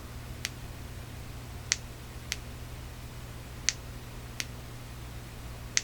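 Convoy 4X18A flashlight's push switch being clicked in pairs of crisp clicks, three pairs a couple of seconds apart, as the light is switched through its output levels.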